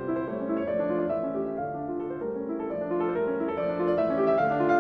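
Background piano music: a gentle, repeating pattern of notes.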